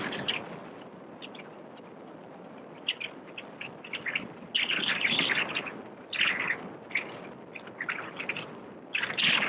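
Birds chirping in short, irregular bursts over a steady background hiss.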